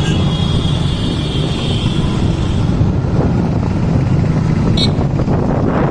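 Road traffic and the ride heard from a vehicle moving through a busy city street: a steady low rumble of engines and road noise, with a high whining tone for the first two or three seconds and a short high sound near the end.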